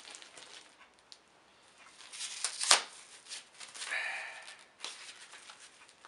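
Rustling and handling noises of items being unpacked, with one sharp click a little before halfway and a longer rustle about four seconds in.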